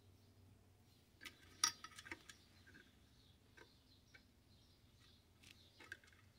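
Faint metallic clicks and ticks of a small screwdriver backing a long screw out of the metal tower of a Johnson Model D fare box. A cluster comes about a second in, then a few scattered single ticks.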